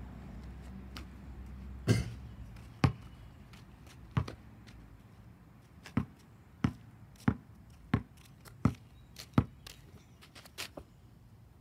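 Basketball bouncing on an asphalt driveway: a few spaced bounces, then a steady dribble of about one and a half bounces a second.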